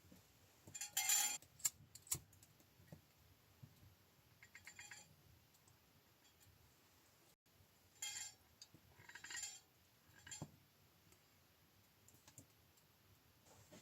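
A few sharp clicks and short scuffing noises, scattered irregularly over a quiet background, the loudest about a second in.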